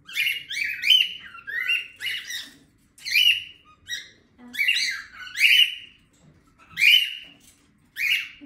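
Pet cockatiels calling over and over, really loud, with harsh shrill calls about one or two a second, many of them dropping in pitch, and a short pause about six seconds in.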